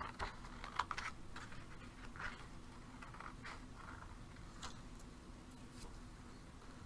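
Scissors snipping through a sheet of paper: several short, faint cuts, the clearest in the first two or three seconds.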